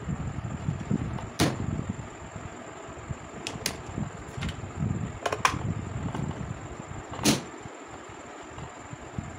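Plastic filter cartridges and housing parts of a water purifier knocking and clicking as they are handled and fitted by hand: several sharp clicks, the loudest about a second and a half in and near the end, over low rustling handling noise.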